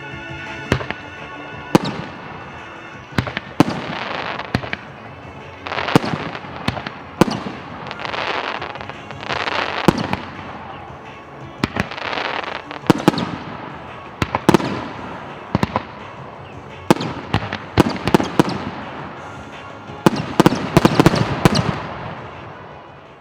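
Aerial fireworks bursting: a string of sharp bangs, each followed by crackling and hissing, every second or two. The bangs come thick and fast about twenty seconds in, then the sound fades away.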